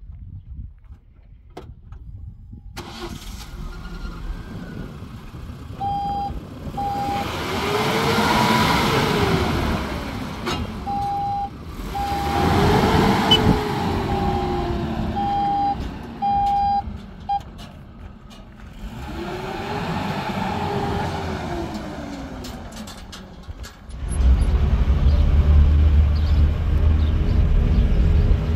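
Motor vehicle engine running, rising and falling in pitch three times as it speeds up, with an on-off beeping tone at times. Near the end a loud steady low rumble sets in.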